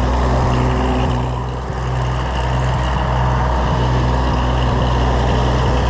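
Oliver 880 tractor engine running steadily.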